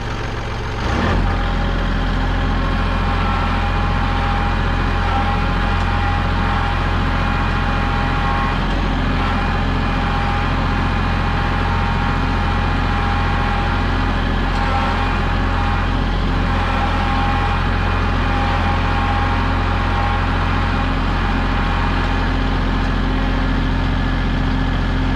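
Kubota compact tractor's diesel engine running steadily close by, getting louder about a second in and then holding an even speed as the tractor drives.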